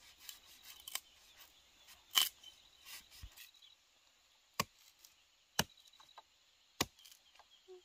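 Machete chopping into a green banana bunch's stalk: sharp separate chops, the loudest about two seconds in, then three more about a second apart.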